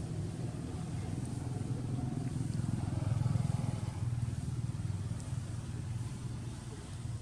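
Low, steady hum of a motor vehicle's engine running, swelling about three seconds in and then easing off.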